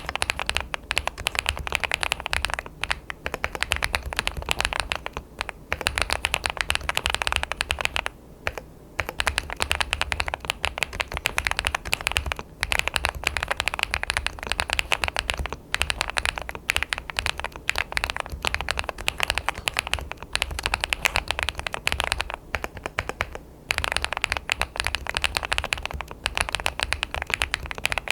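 Continuous fast typing on an ABKO AR88 aluminium-case custom mechanical keyboard: a dense stream of key clicks, with short breaks every few seconds.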